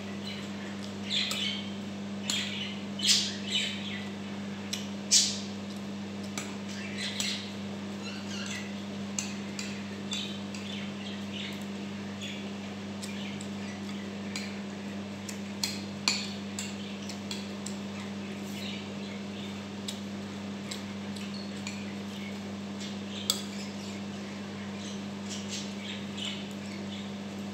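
A metal spoon clinks and scrapes against ceramic bowls, along with mouth sounds of eating: chewing and smacking. The sharp clicks come thickest in the first several seconds and a few more follow later, all over a steady low hum.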